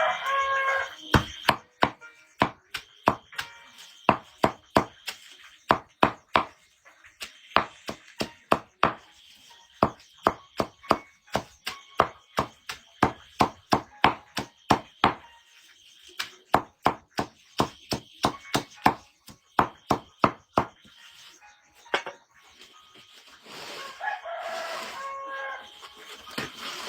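Steady chopping with a blade on a block, about two strokes a second, with a brief pause midway, stopping a little after twenty seconds in. A rooster crows twice, once at the very start and again near the end.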